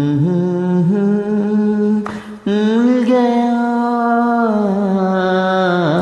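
A man singing a slow Hindi film song in long held notes that slide between pitches, with a short breath break about two seconds in.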